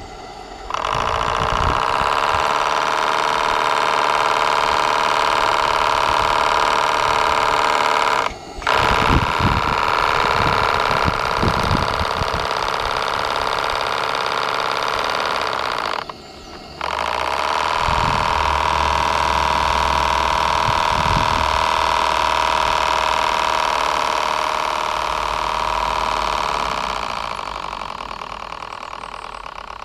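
Model V-twin steam engine (Q series) running on test, a steady, fast mechanical buzz. It breaks off abruptly twice and eases down near the end.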